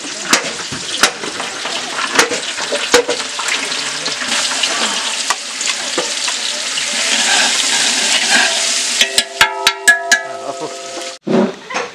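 Ginger-garlic paste frying and sizzling in hot mustard oil in a metal pot, with a metal ladle stirring and clicking against the pot. Near the end come a few ringing metallic taps, then the sound cuts off suddenly.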